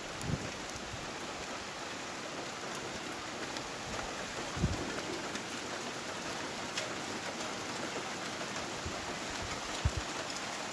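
Heavy rain falling in a steady, even hiss. A few short, dull low thumps stand out: one at the very start, one about halfway through, and one near the end.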